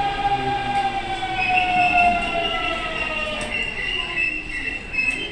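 Hanshin Namba line rapid express electric train moving at the underground platform, several high tones from its motors and wheels sliding slowly in pitch over running noise.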